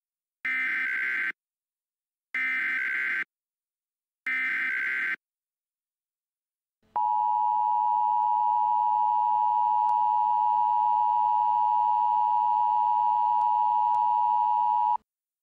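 Emergency Alert System header: three short bursts of screeching digital data tones, evenly spaced about two seconds apart. These are followed by the steady EAS attention tone, held for about eight seconds before it cuts off. Together they signal the start of a severe thunderstorm warning broadcast.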